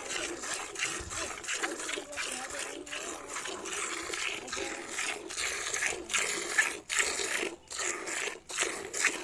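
Cow being hand-milked into a steel bucket: jets of milk squirting into the pail, a hissing splash that swells and dips with each squeeze of the teats.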